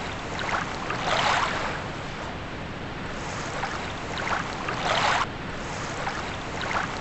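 Small waves washing onto a lake shore over steady wind, with a louder wash of breaking water about a second in and again around five seconds.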